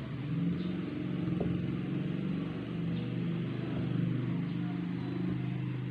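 A motor vehicle engine running steadily, a low hum that sets in at the start and holds at an even level.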